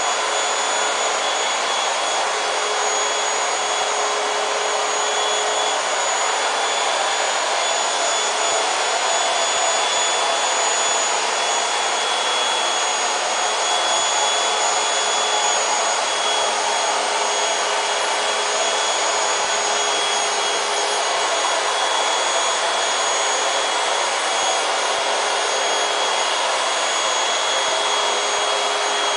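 A small electric motor runs steadily with a whirring hiss and a thin high whine, unchanging throughout.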